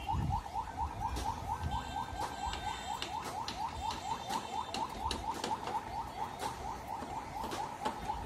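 Steady rapid chirping: short chirps at one pitch, about four a second, with scattered sharp clicks.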